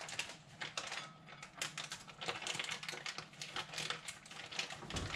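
Plastic food bag crinkling and crackling as hands work it open, a dense run of irregular crisp crackles.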